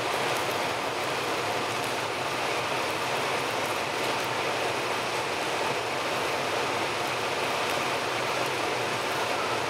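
Steady, even running noise of city buses' diesel engines, with no distinct events.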